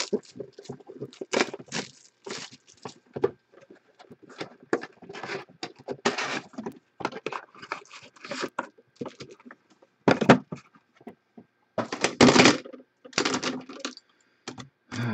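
Cardboard trading-card box opened by hand and its foil card packs pulled out and stacked: irregular crinkling, rustling and light tapping, loudest in short bursts near the end.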